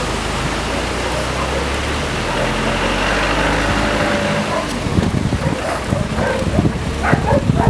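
Land Rover on the move, its engine running with a low, steady note under a noisy rush. From about five seconds in, a choppy, irregular low rumble takes over.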